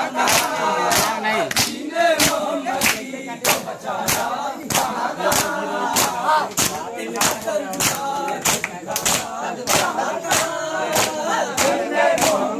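A crowd of men chanting a nauha together while beating their chests with open hands in unison (matam), the slaps landing in a steady beat of about two a second.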